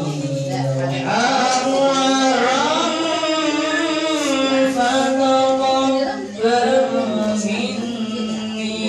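Male voices chanting a slow devotional song, with long, wavering held notes and a brief break about six seconds in.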